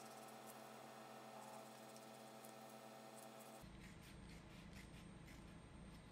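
Faint snipping of scissors cutting along lines through a folded sheet of paper: a scattered series of short, crisp snips over a faint steady hum.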